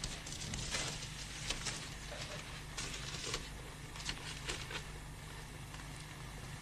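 Faint scattered taps and shuffling, like footsteps on a hard floor, over the steady low hum and hiss of an old film soundtrack.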